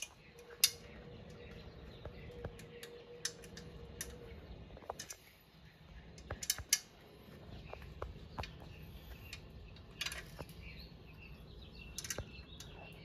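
Scattered light clicks and taps of small screws and a hand tool against a brake caliper cover as it is fitted and screwed in by hand, a few sharp ticks standing out over a low background.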